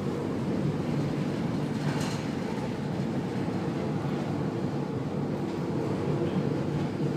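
A ship's engines and machinery drone steadily under a low rumbling noise, with no clear breaks or impacts.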